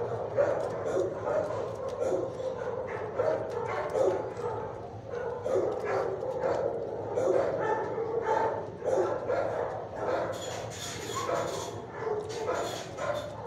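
Shelter dogs barking and yipping without a break, many short overlapping barks at once.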